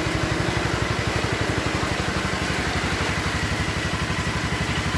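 Generator engine running steadily with a fast, even low thumping of about a dozen beats a second, under the steady hiss of heavy rain.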